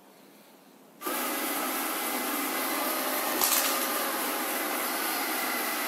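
Alfawise X5 robot vacuum starting up about a second in, its suction fan and brushes then running steadily, with one brief louder crackle about halfway through.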